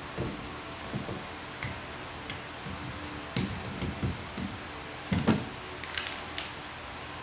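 Hand roller pressing peel-and-stick foam decking down onto a boat's gunwale: a run of irregular soft thumps and knocks with a few sharp clicks, the loudest a little past halfway, over a steady low hum.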